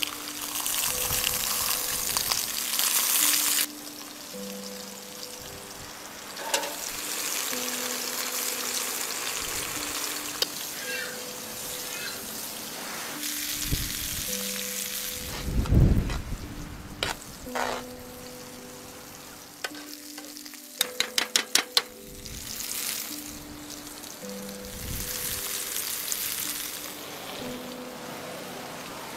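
Sausages and ground beef frying in hot pans, a steady sizzle throughout. About halfway through comes a loud, dull knock, and a little later a quick run of about eight sharp metallic clicks.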